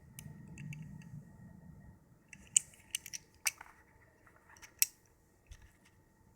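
Balisong (butterfly knife) being handled: a soft rustle, then about six sharp metallic clicks as the handles and blade knock against each other.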